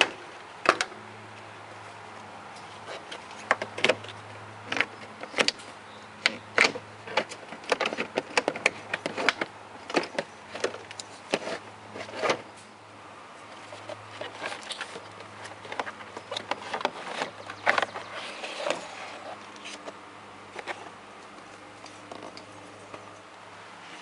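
A series of irregular sharp clicks and knocks, coming thick for the first half and thinning out near the end, over a low steady hum.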